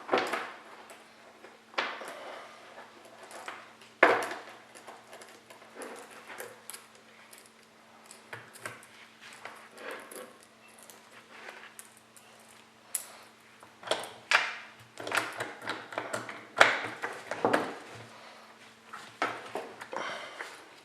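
Irregular clinks, clicks and knocks of a saw chain and plastic chainsaw parts being handled, with a few sharper knocks among them.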